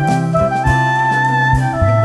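Instrumental background music: a stepping melody with held notes over a steady bass line and a regular beat.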